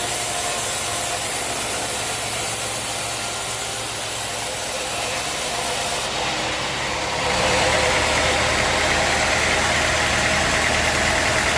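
Sawmill machinery running steadily with a broad hiss, changing abruptly about seven seconds in to a louder, steady engine sound.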